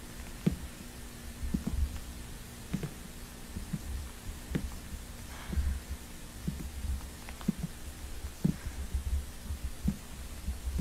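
Slow footsteps of someone walking with a handheld camera over a wooden floor: soft thumps about once a second over a low handling rumble and a faint steady hum.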